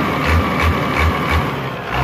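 Isuzu 6BG1 inline six-cylinder diesel engine running steadily with a regular low pulsing, about three beats a second, just restarted after its injection pump timing was advanced to cure a slight miss.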